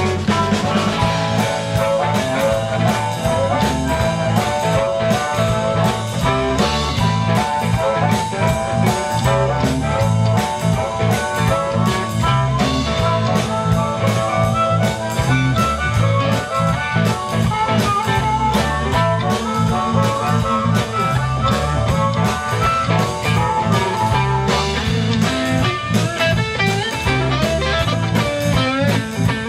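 Live electric blues band playing an instrumental passage through a PA: electric guitars, bass and drum kit with a harmonica carrying the lead, its notes bending near the end.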